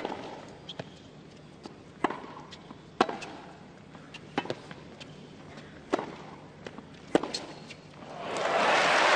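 Tennis ball struck back and forth by racquets in a rally, a sharp pop roughly every second with fainter ball bounces between. The crowd breaks into applause near the end as the point is won.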